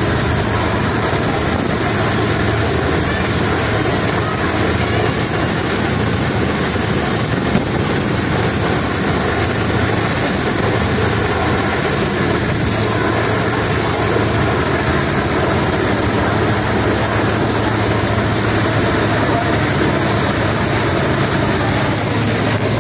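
Steady drone of a boat's engine under way, with a constant low hum beneath a loud, even rush of wind and water.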